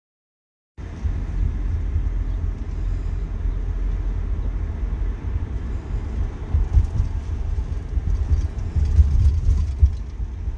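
Road noise inside a moving car's cabin: a steady low rumble of engine and tyres that starts about a second in.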